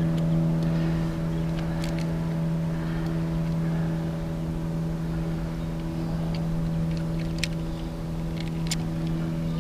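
A boat motor running at a steady hum, with a few light clicks.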